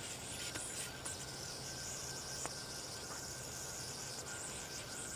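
Insects buzzing steadily in a high, even chorus, with a few faint clicks.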